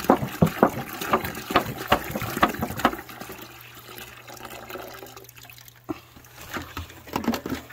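Birch sap dripping from a tap spile into a plastic jug in quick drips, about four a second, thinning out to fainter, sparser drips after about three seconds.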